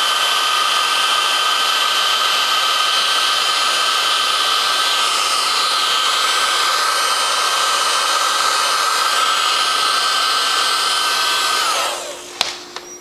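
Electric heat gun running steadily, a blowing rush with a high fan whine, shrinking heat-shrink tubing over a soldered wire joint. Near the end it is switched off and the whine falls in pitch as the fan winds down, followed by a couple of light clicks.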